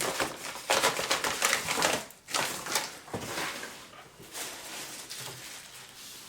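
Packaging rustling and crinkling as it is handled and unwrapped, in irregular bursts that are busiest in the first couple of seconds and thin out toward the end.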